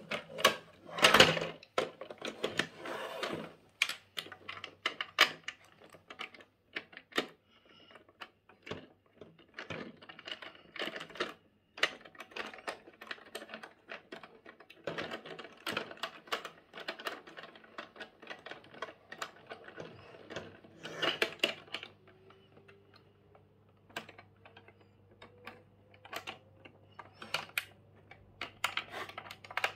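Irregular clicking and clattering of hard plastic toy parts being handled, with wheels fitted and plastic screws turned with a toy screwdriver. The clicks come in clusters and thin out in the last third.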